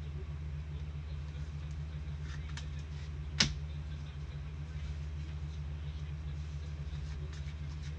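Trading cards being handled over a steady low hum: faint rustles and ticks, and one sharp click about three and a half seconds in.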